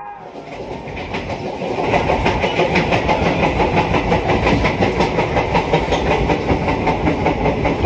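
Express passenger train coach running on the rails, heard from inside near the vestibule: a steady rumble with a dense, rhythmic rattle and clatter of the carriage. It fades in over the first second or two, then holds steady.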